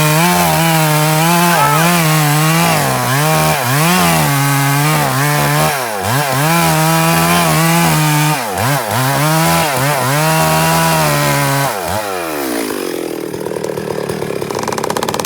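Two-stroke chainsaw at full throttle cutting wood, its engine pitch sagging and recovering again and again as the chain bites. About twelve seconds in, the throttle is let off and the engine winds down toward idle.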